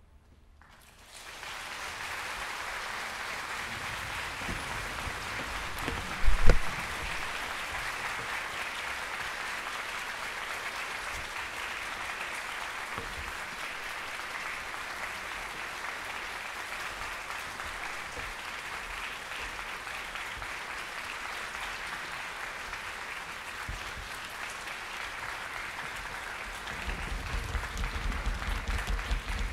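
Concert-hall audience applauding at the end of an orchestral piece: steady clapping starts about a second in and keeps going. A single loud thump comes about six seconds in, and a low rumble joins the clapping near the end.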